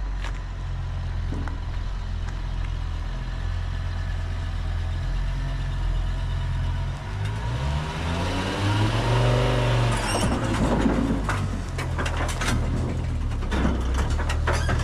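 A car engine idling, revving up and falling back once about eight seconds in, followed by a run of sharp clanks and knocks near the end.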